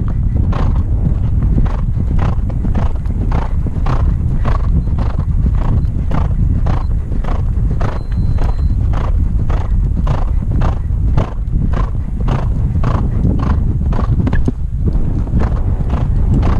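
A horse galloping over turf: steady, even hoofbeats about two to three a second, over a heavy low rumble of wind on the rider-mounted microphone.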